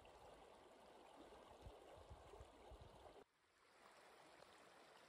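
Faint sound of a shallow creek running over rocks, with a few low thumps. About three seconds in it cuts off sharply and comes back quieter.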